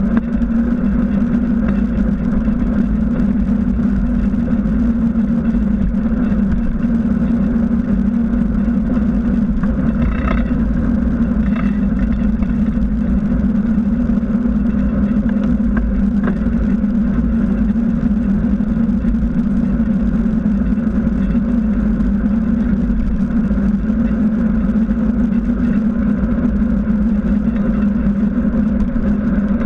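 Steady wind and rolling noise of a moving bicycle, its knobby tyre on asphalt, picked up by a handlebar-mounted camera: a constant low hum and rumble. Two faint brief higher sounds come about a third of the way in.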